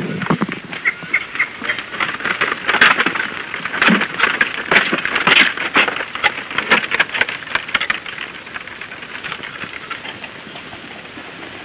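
Wooden-wheeled bullock cart on the move: a dense, irregular clatter of knocks and clicks, thinning to a quieter, even rumble after about eight seconds.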